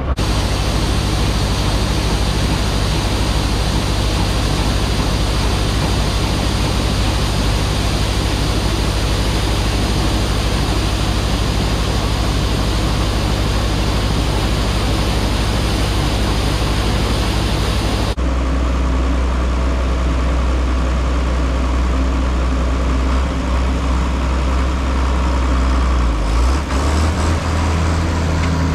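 The six-cylinder diesel engine of a 1973 John Deere 4430 tractor running steadily while pulling a loaded wagon. About two-thirds of the way through, the sound changes abruptly and becomes deeper, with less hiss.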